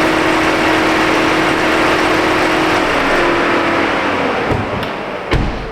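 Car's electric radiator cooling fans running on high, then winding down as the ignition key is switched off, fading over the last second or two. A single sharp knock near the end.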